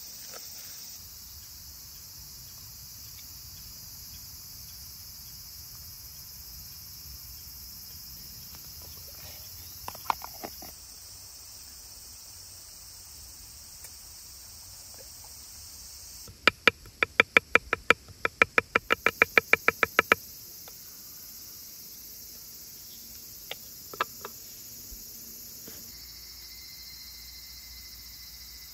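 Crickets and other insects chirping in a steady high chorus. About two-thirds of the way in, a loud quick run of sharp clicks lasts about four seconds, and there are a couple of single knocks.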